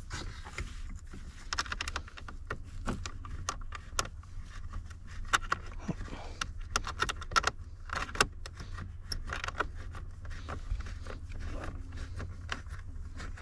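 Hand ratchet clicking in short, irregular runs while backing out a small 1/4-inch bolt, with metallic rattles of tool and bolt, over a steady low hum.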